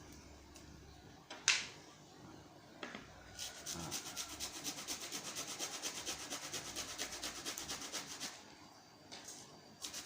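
Leaves being grated on a hand grater: quick, even scraping strokes that begin about three and a half seconds in, pause briefly, and start again near the end. A single sharp click, the loudest sound, comes about a second and a half in.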